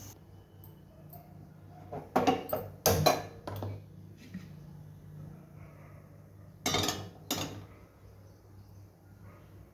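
Kitchen dishes clinking: a few sharp knocks and clinks about two to three seconds in and two more near seven seconds, over a faint low steady hum.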